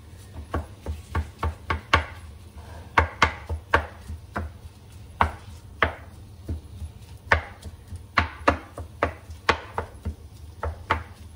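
A wooden spatula knocks and scrapes against a non-stick frying pan as minced meat is broken up and stirred. The sharp, irregular taps come about two to three a second over a low steady hum.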